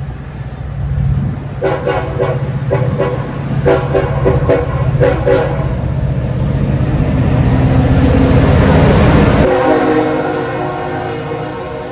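Diesel locomotive horn sounding a series of short blasts over the heavy rumble of a train. The rumble swells louder, then cuts off suddenly. A long, steady horn blast follows near the end.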